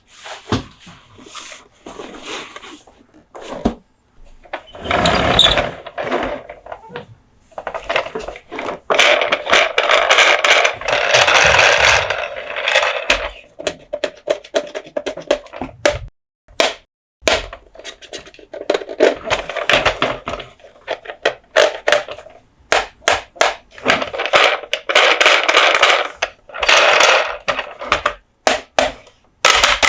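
Close-up handling of Monster Jam diecast toy trucks and their packaging: many sharp clicks and taps, with several stretches of scratchy rubbing noise lasting one to four seconds.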